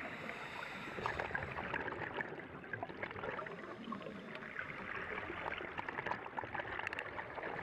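Underwater bubbling and crackling from scuba divers' regulators as they breathe out clouds of bubbles, a steady hiss with many small ticks.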